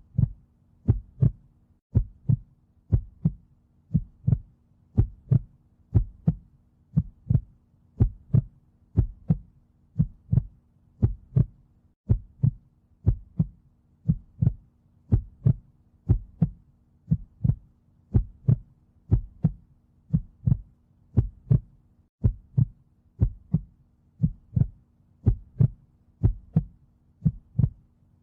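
Human heartbeat, a steady lub-dub double thump repeating about once a second.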